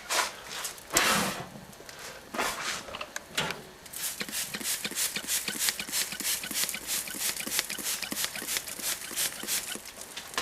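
Sony headset radio burning inside a microwave oven, its plastic crackling and popping as it burns. A few louder pops come in the first few seconds, then rapid, dense crackling from about four seconds in.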